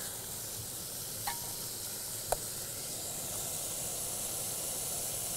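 Ham frying in oil in a pot on a backpacking stove: a steady sizzle, with two light clicks about one and two seconds in.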